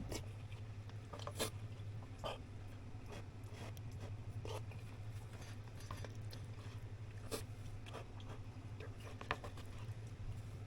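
Wood fire burning in a small campfire stand, giving scattered irregular pops and snaps over a low steady hum.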